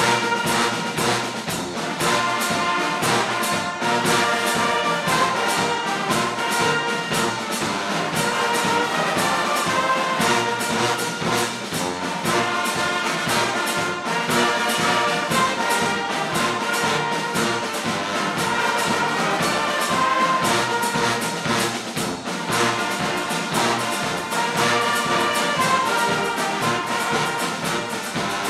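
Brass band playing a hymn-like tune: massed trumpets and trombones sounding sustained chords over a steady drum beat.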